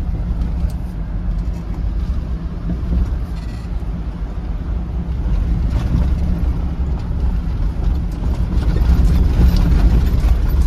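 Cabin noise inside a Mahindra Thar driving over a rough, rocky mountain road: a steady low rumble of engine and tyres on broken gravel.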